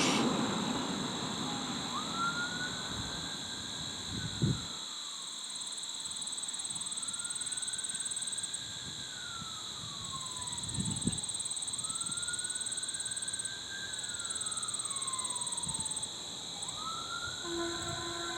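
Outdoor warning siren wailing faintly, its pitch rising, holding and then sliding down about every five seconds.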